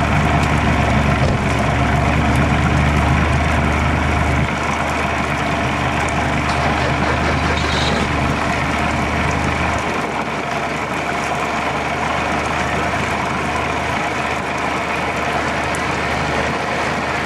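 Johnson 35 hp outboard motor running in a water test tank, a steady engine note whose deep low end steps down twice, about four seconds in and again about ten seconds in.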